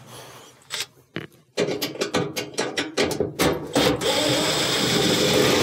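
Cordless driver backing out a Phillips screw from an oven's rear wall: a run of sharp rattling clicks, about six a second, from about a second and a half in, then the motor running steadily for the last second and a half.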